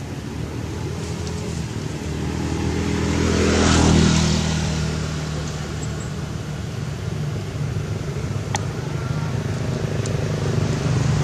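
A motor vehicle's engine running, swelling to its loudest about four seconds in as it passes, then easing off and building again near the end.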